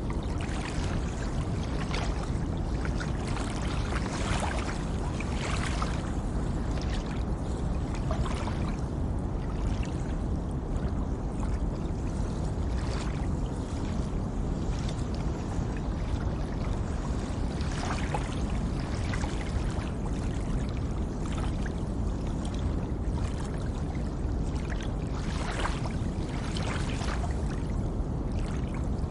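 Steady pink noise mixed with gentle water sounds, with soft splashes here and there.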